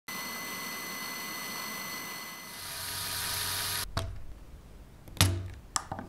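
A steady hiss with several held electronic tones, cutting off suddenly about four seconds in. Then a few sharp plastic clicks and one louder knock as a Lego battery box and model are handled.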